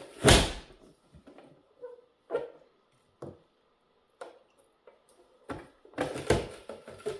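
Hand-pressed Brieftons onion chopper being slammed down hard on onion pieces that resist its blades, giving sharp plastic knocks about once a second. The loudest knock comes about a third of a second in, with a quicker run of knocks near the end.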